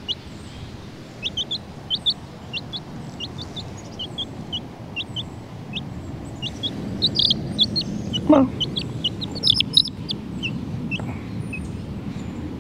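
Young chicken peeping over and over: short, high, downward-sliding peeps, a few a second, over steady low background noise. A lower falling call comes about eight seconds in, and a few clicks follow shortly after.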